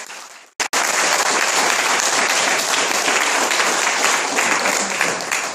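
Audience applauding in welcome. The clapping starts suddenly about half a second in, holds steady, and thins out near the end.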